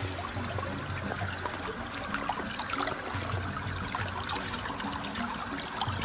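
Shallow river water trickling steadily, with many small light splashes.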